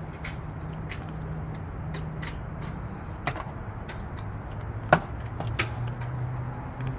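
Scattered clicks and knocks of a caulking gun being handled as a urethane tube is locked into it, the sharpest click about five seconds in, over a steady low hum.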